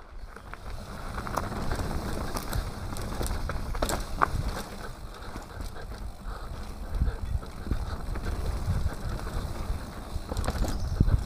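Mountain bike riding down a dirt forest singletrack: tyres rumbling on the trail and wind on the microphone, with frequent rattles and knocks from the bike over the rough ground, loudest near the end.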